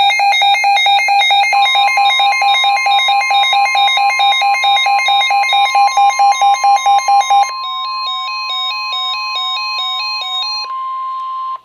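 Weather radio alert: an electronic alarm beeping rapidly, about four beeps a second, that changes to a two-tone warble about seven and a half seconds in, over NOAA Weather Radio's steady 1050 Hz warning alarm tone, which comes in about a second and a half in and cuts off abruptly. The tone signals the start of a new warning broadcast.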